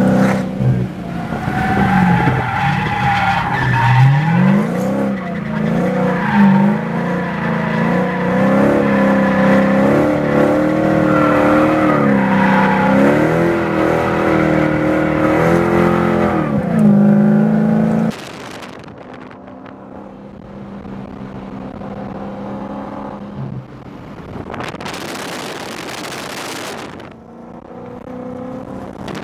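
Performance car engine revving hard, its pitch swinging up and down as it is driven in drifts, with tyres skidding. About 18 seconds in it drops suddenly to a much quieter, steady running, with a brief hiss a few seconds before the end.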